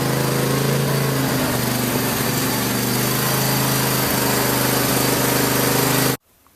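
Craftsman lawn tractor's engine running steadily, back in running order after a no-start repair. It breaks off suddenly near the end.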